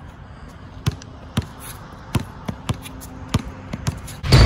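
Basketball dribbled on a hard outdoor court: about ten bounces, irregular at first and coming faster toward the end. Just before the end, a loud burst of other sound cuts in abruptly.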